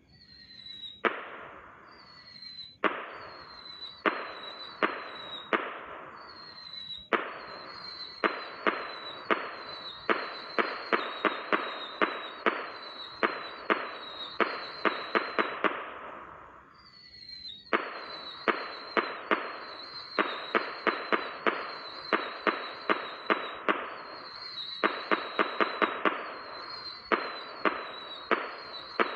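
Diwali rocket fireworks going off one after another. Each gives a short high whistle that ends in a sharp bang. At first they come a few seconds apart, then in quick succession, with a brief lull a little past halfway.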